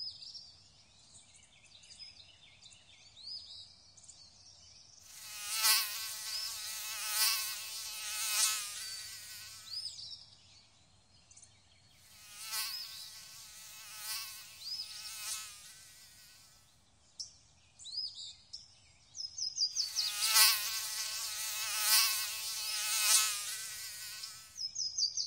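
Mosquitoes whining in flight: a high-pitched buzz that swells and fades three times as they pass. Faint bird chirps come in the quieter gaps.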